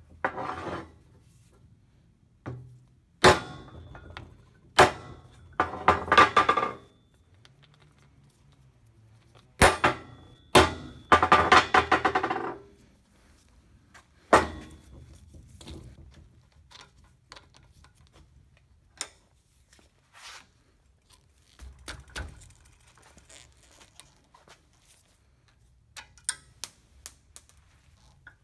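Metal clanks and knocks from work on a car's coil-spring strut assembly at a steel workbench: sharp single knocks, twice followed by about a second of rapid knocking, some with a brief metallic ring. The last half holds only faint scattered clicks.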